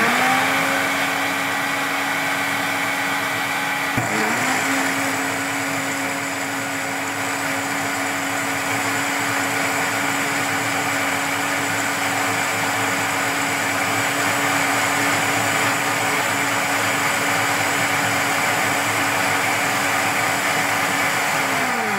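Bajaj FX 1000 food processor's blender motor blending watermelon chunks with crushed ice and water, coming up to speed at the start. About four seconds in it cuts out briefly and spins up again, then runs steadily at full speed before starting to wind down right at the end.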